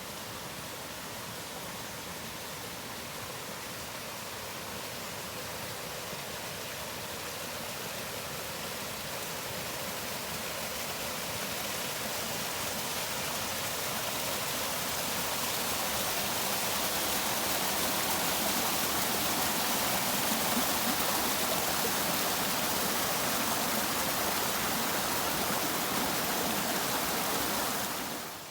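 Rushing water of a stream, a steady hiss that grows louder over the first half or so, then holds and stops abruptly at the end.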